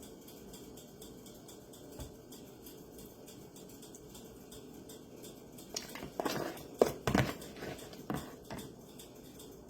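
Kitchen handling noise: a quiet stretch, then a short run of knocks and clatter about six seconds in, as dishes or utensils are moved about.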